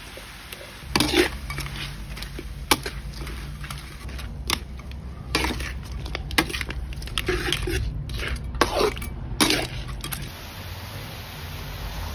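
A stirring utensil scraping and knocking against a metal wok as glass noodles, crab and vegetables are tossed together, over a steady frying sizzle. The clatter starts about a second in and tails off near the end.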